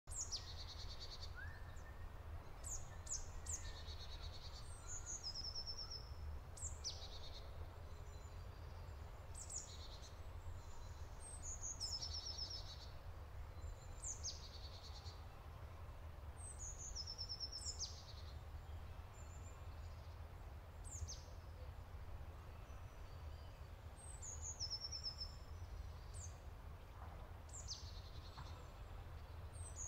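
Small songbirds chirping and singing: quick, high downward-sweeping chirps and short trills repeated every second or two, over a faint steady low rumble.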